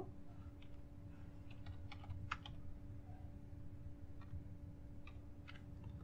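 Faint keystrokes on a computer keyboard as a word is typed: a dozen or so light, irregular clicks, with a steady low hum underneath.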